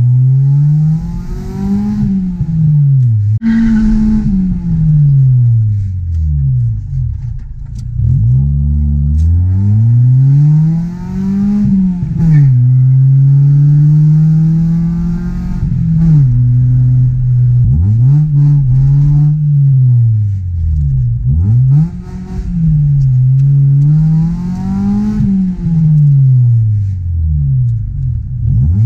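Honda CRX Del Sol's D16Y8 1.6-litre SOHC VTEC four-cylinder engine and exhaust, heard from inside the cabin while driving through the gears. The engine note climbs and falls again and again, dropping sharply at the gear changes, with a steady cruising stretch about halfway through.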